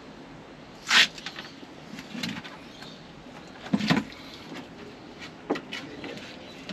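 A few short scrapes and knocks as a plastic spreader and gloved hands work bog filler around a fibreglass floor panel in a boat hatch. The loudest comes about a second in and another near four seconds.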